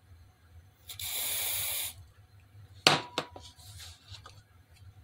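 One burst of aerosol spray hissing for about a second. About two seconds later a sharp knock, the loudest sound here, followed by a few lighter clicks as the spray can is set down on the table.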